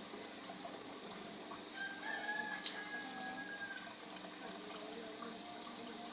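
A rooster crowing: one long, drawn-out call starting about two seconds in, with a sharp click in the middle of it.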